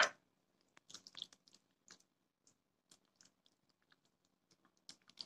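A hand squishing and kneading a thick, wet batter of grated coconut, flour and semolina in a bowl: faint, irregular squelches and small clicks.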